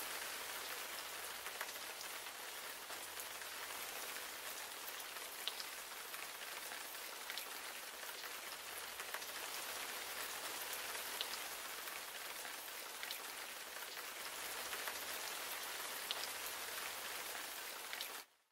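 Steady rain falling on a hard surface: an even hiss with scattered sharper drop ticks, cutting off suddenly just before the end.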